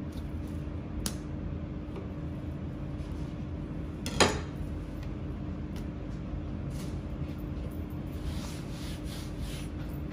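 A Japanese chef's knife set down on a white plastic cutting board: one sharp clack with a short ring about four seconds in, over a steady low kitchen hum. Soft handling and scraping sounds on the board near the end.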